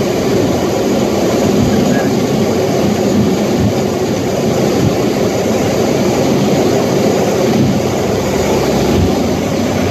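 Aircraft engine drone heard from inside the cabin: a steady, loud rushing noise with a low, even hum underneath.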